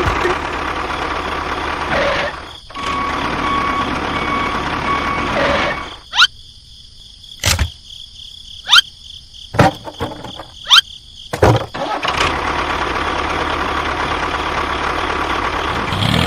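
A small motor running steadily. It cuts out for about six seconds in the middle, and that gap is broken by half a dozen short, sharp sounds that sweep quickly upward in pitch. The running sound starts again afterwards.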